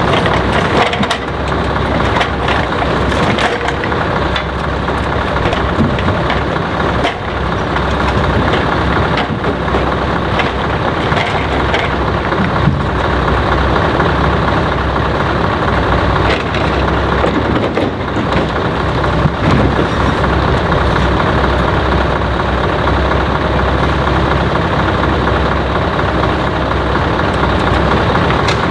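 Scania R500 timber truck's V8 engine running steadily while its crane loads logs, with irregular hard knocks as logs are dropped onto the load.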